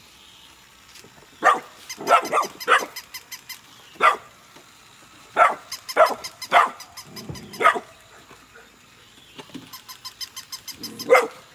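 Golden retriever puppies barking at a walking toy dog: about a dozen short, sharp, high yaps at uneven intervals. Near the end comes a burst of rapid, even clicking, typical of the toy's battery-driven walking mechanism.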